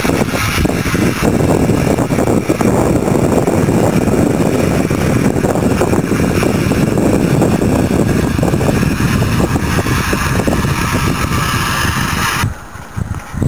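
Pond aerator running, churning the water: a loud steady rush of splashing water with a rough low rumble. The higher hiss cuts off suddenly near the end.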